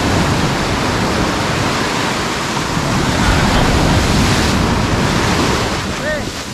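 Sea surf breaking and foaming up a sandy beach close by: a loud, steady rush of waves.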